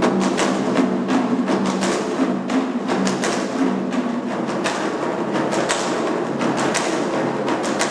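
An orchestra playing with large drums: quick, dense drum strokes over sustained chords from the ensemble.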